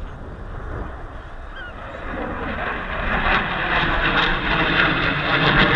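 Jet aircraft flying past overhead. Its engine noise is a rough, even rush that swells from about two seconds in and stays loud to the end.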